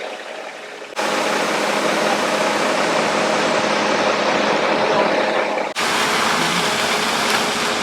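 Engine running steadily with a constant hum, jumping louder abruptly about a second in and breaking off briefly near six seconds.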